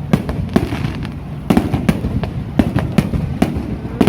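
Fireworks going off in a rapid, irregular string of sharp bangs and pops, several a second, over a low rumble.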